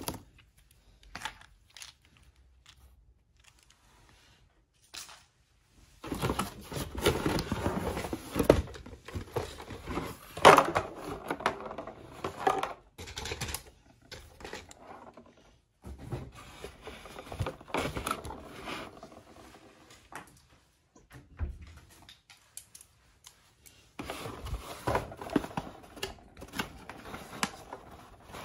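Handling noises from unpacking a boxed toy car: cardboard packaging scraping and rustling, with clicks from plastic fasteners being pulled free. They come in irregular spells with short quiet pauses between them.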